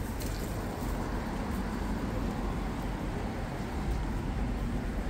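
Steady low rumble of city traffic, with a few faint footsteps on pavement.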